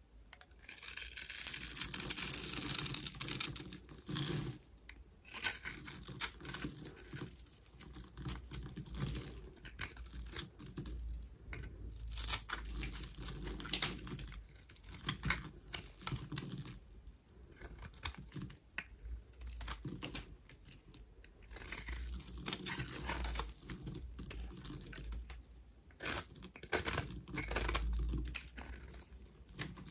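Knife blade cutting into a bar of dry soap, carving cubes: a run of crisp crunching and crackling scrapes, the loudest a long scrape in the first few seconds, with a sharp snap about twelve seconds in.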